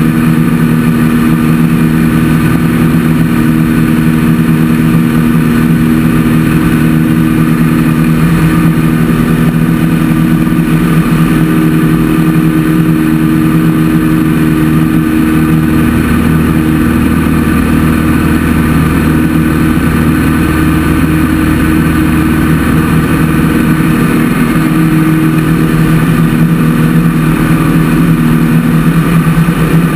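Light single-engine airplane's piston engine and propeller droning steadily in flight, with a slight shift in tone partway through.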